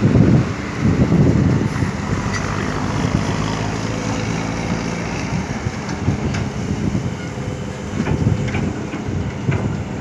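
Heavy diesel machinery working: a Kobelco SK200 excavator with a ten-wheel dump truck. The engine surges and then runs steadily, with a few sharp knocks in the second half.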